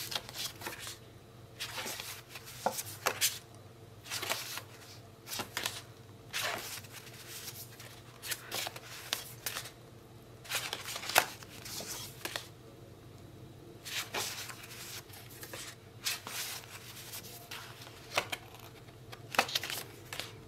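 A stack of paper journaling cards being leafed through by hand, each card slid off the pile with a short papery swish. The swishes come irregularly, about one a second.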